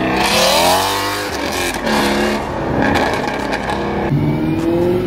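A car engine revving hard: its pitch climbs for about a second and then drops, followed by a few shorter revs. Near the end an engine accelerates with a steadily rising pitch.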